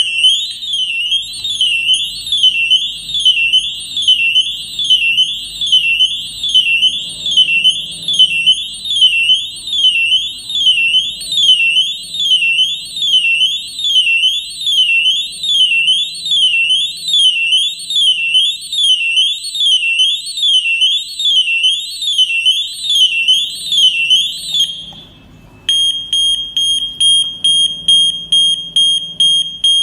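MUCCO SNT-B712 electronic horn siren sounding loudly, a high wailing tone sweeping up and down about once a second. Near the end it drops out briefly and switches to another melody, a steady high tone beeping rapidly, about three beeps a second.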